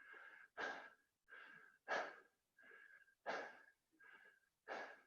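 Heavy, rapid breathing of a person out of breath from doing burpees, a breath roughly every two-thirds of a second, alternating louder and softer, with a faint whistling wheeze.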